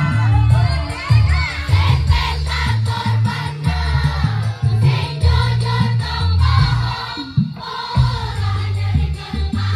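Music with a heavy, steady bass beat and many voices singing together as a group. The bass cuts out briefly near the end, then comes back.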